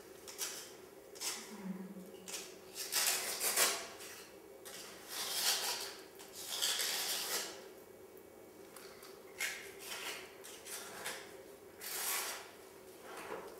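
Hands scraping and brushing over a rough, flaking plaster wall, with bare feet shifting on a gritty floor, in irregular strokes every second or two over a faint steady hum.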